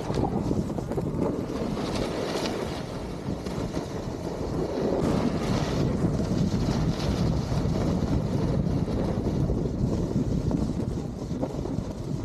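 Wind buffeting a moving camera's microphone on a snowboard run: a steady, dense rumble with brief hissier rushes about two seconds in and again from about five to seven seconds in.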